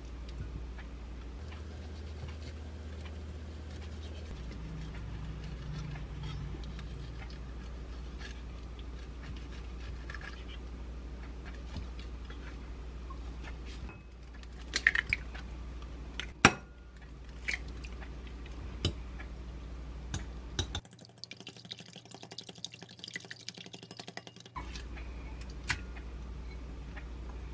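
Kitchen food-prep sounds over a steady low hum: two sharp knocks about halfway through as eggs are cracked on the rim of a glass mixing bowl, then smaller scattered clicks and handling noises. The hum drops out briefly near the end.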